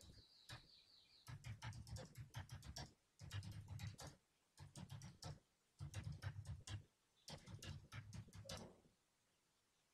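Computer keyboard typing in about five quick bursts of keystrokes with short pauses between them, faint.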